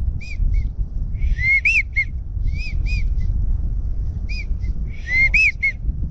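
Wigeon whistle calls: short, high, arched whistled notes in groups of two or three, the middle note highest, repeated about five times, over a steady low rumble.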